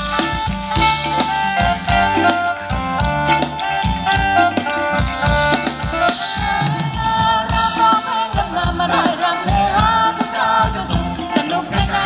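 Thai ramwong dance music from a band played loud over a PA loudspeaker stack, a steady drum beat under a sustained melody.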